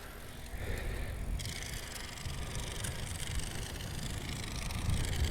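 Wind rumbling on the microphone of a moving bicycle, with a steady hiss of road noise coming in about a second and a half in.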